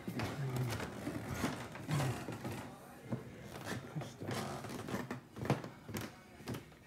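Footsteps on a wooden floor at a walking pace, about two knocks a second, with a faint indoor murmur behind them.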